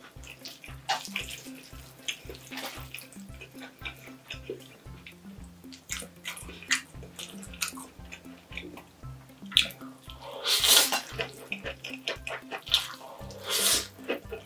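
Person slurping and chewing spicy stir-fried instant noodles, with small wet mouth clicks throughout. There are two long, loud slurps, one about ten seconds in and one near the end. Light background music with a steady beat plays underneath.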